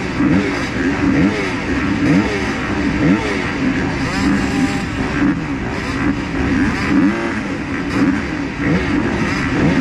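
A line of motocross bikes at the starting gate, their engines held high and blipped again and again, with many overlapping revs rising and falling while the riders wait for the gate to drop.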